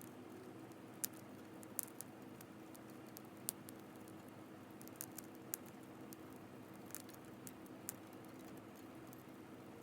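Wood campfire crackling, with sharp pops at irregular intervals over a soft steady hiss.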